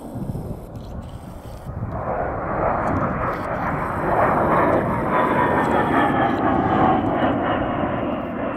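A-10 Thunderbolt II's twin TF34 turbofan engines on a low pass, the jet noise building from about two seconds in to a loud rush with a steady high whine. No cannon fire: a dry strafing run.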